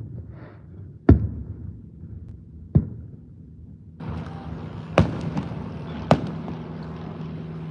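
Aerial fireworks shells bursting at a distance: four sharp booms, spaced one to two seconds apart. From about four seconds in, a steady engine drone joins underneath.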